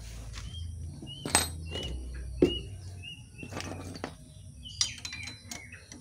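A small bird chirping over and over, short high chirps about every half second. Two sharp knocks stand out, one about a second in and one near the middle, over a low steady rumble.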